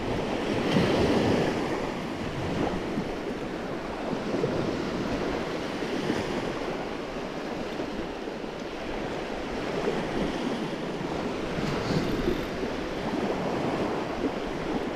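Small surf waves breaking and washing onto the beach, with wind buffeting the microphone. The wash swells louder about a second in.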